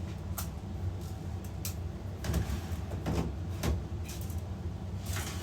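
Plastic filament spools being handled on a rack: a series of short knocks and clicks, busiest in the middle, then a longer scraping rustle near the end, over a steady low hum.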